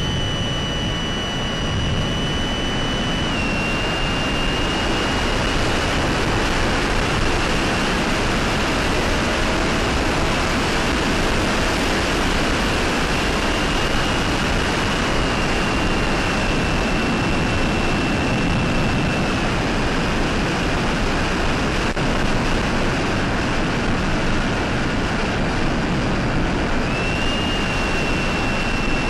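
Mini Talon model plane in flight: its SunnySky brushless electric motor and 8x6 propeller give a high whine over a steady rush of wind noise. The whine drops in pitch a few seconds in, rises again around the middle, dips, and rises once more near the end, following the throttle.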